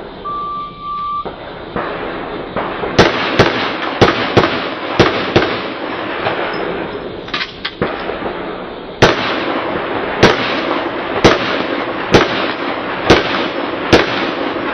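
A shot-timer start beep, then a string of pistol shots fired in a practical shooting stage. It opens with three quick pairs about half a second apart, then a few scattered shots, then six single shots about a second apart.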